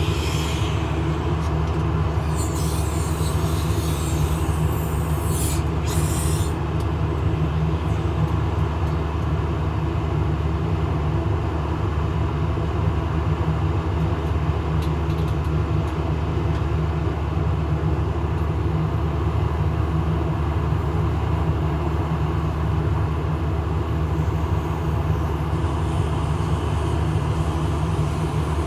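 Case IH 4430 Patriot sprayer running at a steady, unchanging speed while its autofold is tested after a counterbalance valve replacement. A high hiss sits on top of it for the first six or so seconds.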